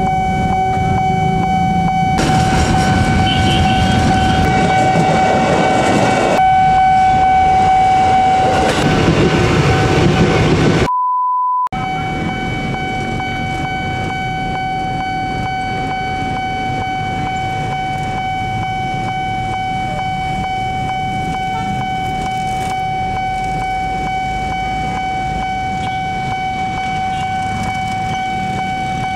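Railway level-crossing warning alarm sounding a steady electronic tone while a train passes with loud rumbling for about the first ten seconds. A brief pure beep follows, then the crossing alarm goes on alone.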